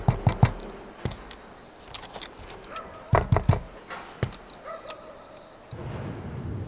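Sharp close-up clicks and taps in two short clusters as fresh strawberries are picked off a wooden plate and bitten, then a steady low outdoor rumble begins about six seconds in.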